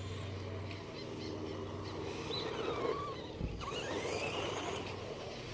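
A battery-powered RC truck driving, its electric motor whining up and down in pitch while its tyres roll over the ground, with a short thump a little past halfway.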